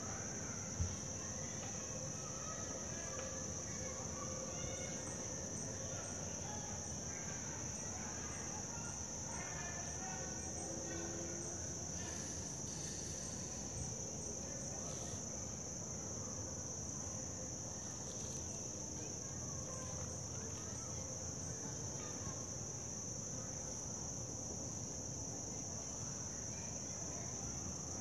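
Steady, high-pitched drone of a summer insect chorus, with a brief click about a second in.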